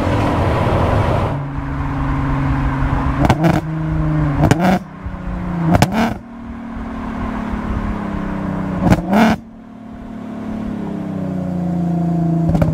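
Supercharged 3.2-litre V6 engine of a VW Caddy van heard from inside the cabin, pulling hard under load at around 3,000–3,700 rpm. Four brief sharp noises cut across it, and the pitch climbs again over the last few seconds as it accelerates.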